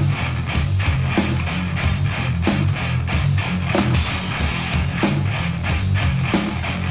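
1980s thrash metal recording: distorted electric guitar riffing over bass and hard-hit drums, with no singing.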